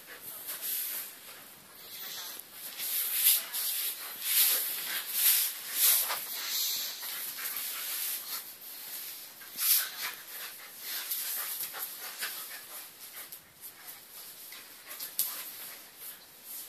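A Eurasier puppy and an older dog play-wrestling, making a string of short, irregular dog sounds and scuffles, loudest about three to seven seconds in and again near ten seconds.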